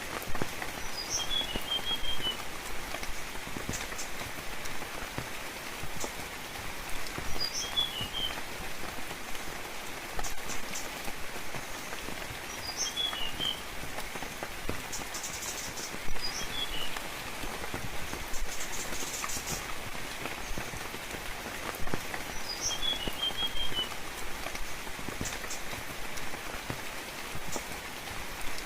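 Steady gentle rain with drops pattering, and a songbird repeating the same short chirping phrase about every five or six seconds: one high note followed by a quick run of lower notes.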